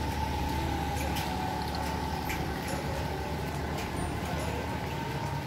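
A vehicle engine running steadily: a low hum with a steady whine over it and a few faint clicks.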